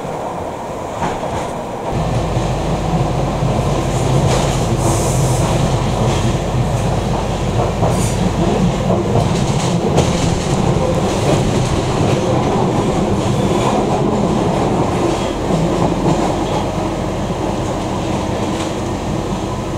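London Underground D Stock train heard from inside the carriage while running: a steady rumble of wheels on rail, with some clicking from the track. About two seconds in it becomes louder and deeper, with a low drone underneath.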